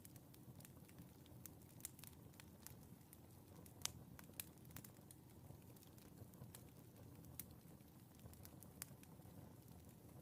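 Wood fire crackling softly over a low steady rumble, with irregular sharp pops; the loudest pop comes about four seconds in.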